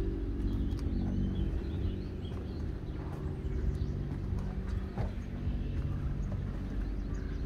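Footsteps on a boat's deck over a steady low mechanical drone of a running engine, with faint bird chirps.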